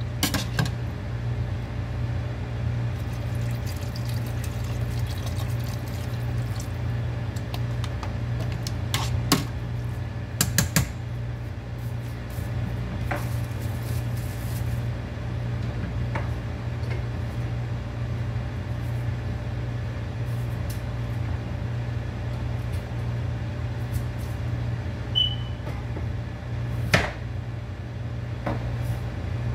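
A steady low hum with scattered clinks and knocks of kitchen utensils. A metal slotted spoon taps a stainless stockpot near the start, and counter clatter follows, the sharpest knock near the end.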